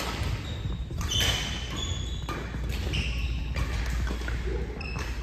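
Sports-hall sounds on a wooden gym floor: sneakers squeaking and scattered sharp knocks and thuds echoing in a large hall, over a steady low rumble.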